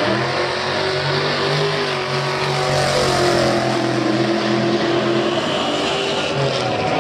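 Two drag-racing cars' engines launching off the line at full throttle and accelerating down the strip, their pitch holding high with small steps as they pull away.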